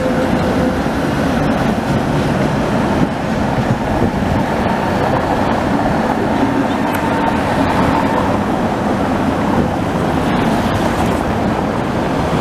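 Tatra T3 trams running past on street track, a steady rumble of steel wheels on rails mixed with cars driving over cobblestones. A faint thin whine comes in about halfway through.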